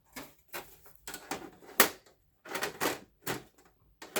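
Irregular clicks and knocks of a desktop computer's side cover being worked against the case as its tabs are fitted into place, the loudest knock a little under two seconds in.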